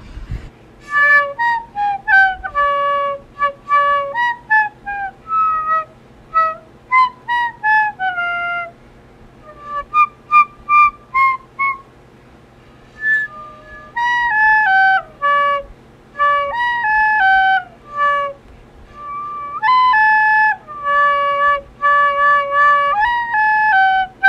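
Background music: a solo flute-like melody of single notes, often stepping down in short runs, with short pauses between phrases.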